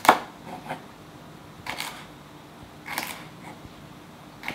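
Knife chopping garlic scapes on a wooden cutting board: separate crisp chops knocking on the board, about one to three a second, the first the loudest.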